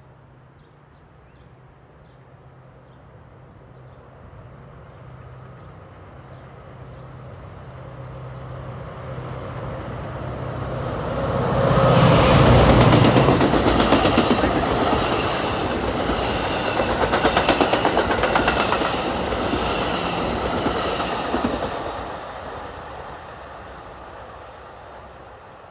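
NJ Transit PL42AC diesel-electric locomotive approaching with a steady low engine drone that grows louder, passing close about twelve seconds in. It is followed by multilevel passenger coaches whose wheels clatter rhythmically over the rail joints, and the sound fades away over the last few seconds.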